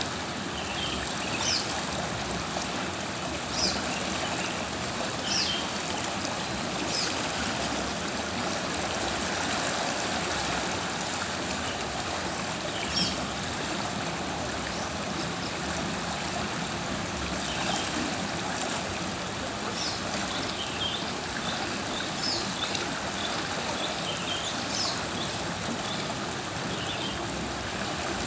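River water flowing and rushing over rocks in a steady, even stream, with short high chirps dotted through it now and then.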